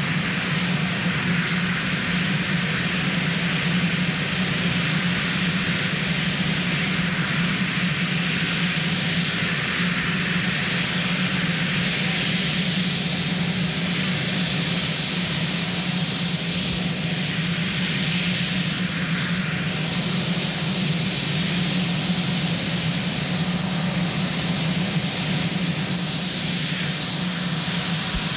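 Marine One, a Sikorsky VH-3D helicopter, running on the ground with its twin turbine engines: a steady rushing noise with a constant high turbine whine and a low hum. It grows slightly louder near the end.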